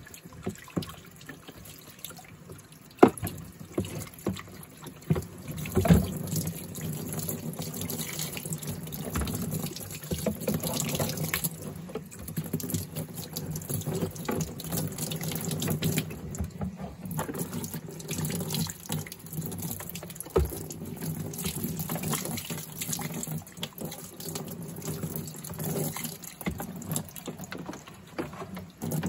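Water running from a utility sink tap and splashing over a shop vac's plastic filter cage as it is rinsed out, with a couple of sharp knocks about three and six seconds in.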